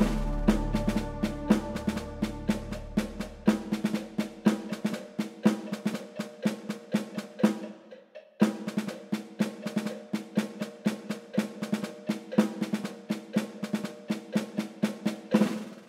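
Background music made of a fast, even rhythm of pitched percussion strikes, with a short break about eight seconds in and a fade near the end.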